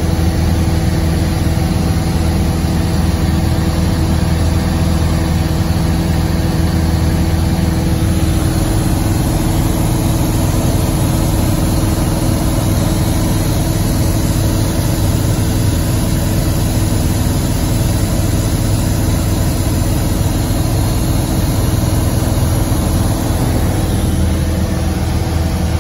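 Steady drone of an aircraft's engines in flight, heard from inside the cabin: an even, unchanging hum with several constant tones over a rushing background.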